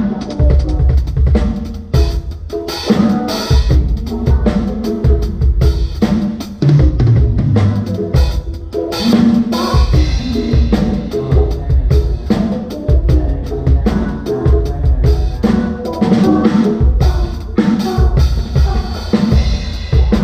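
Live band playing during a sound check, led by a drum kit: steady bass-drum beats, snare and rimshot strokes over bass and pitched instruments.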